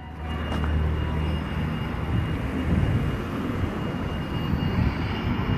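Town street noise: a steady low rumble of traffic, strongest in the first second or so, with a faint steady high whine.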